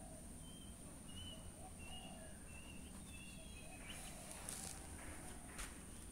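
Faint outdoor ambience: small birds chirping in short repeated notes and a steady high insect buzz, with a few soft rustles and scuffs in the second half.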